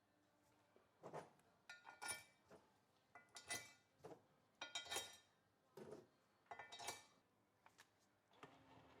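Faint, scattered metallic clinks and knocks, about a dozen, several ringing briefly, as metal car parts and tools are handled and set down.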